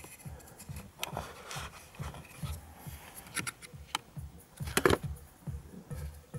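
Light clicks and rubbing from hands and a tool handling parts, with one sharper click about five seconds in, over a faint low pulse repeating about twice a second.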